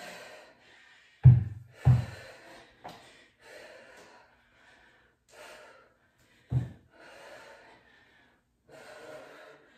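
A woman breathing hard in short, noisy exhales from exertion during kettlebell diamond push-ups and upright rows. Three dull thumps stand out: two close together about a second in, and one more past the middle.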